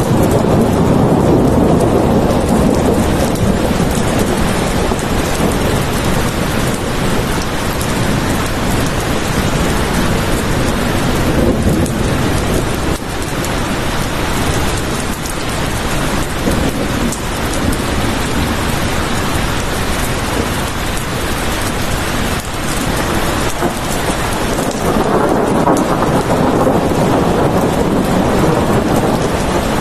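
Steady heavy rain, with low rolling rumbles of thunder swelling up near the start and again near the end.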